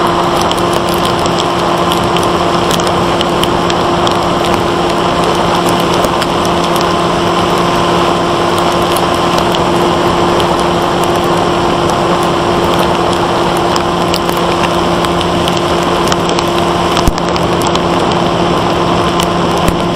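Brushless electric motor and propeller of a Bixler 1.1 RC plane (Turnigy 2826-6 motor, 8x3.4 prop) running at a steady pitch in flight, heard through the onboard camera's microphone under a heavy rush of airflow noise. One sharp click near the end.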